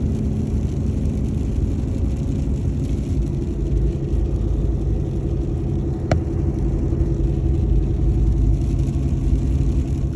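Steady engine and road rumble of a vehicle driving on a snowy highway, with a low engine drone underneath; a single brief click about six seconds in.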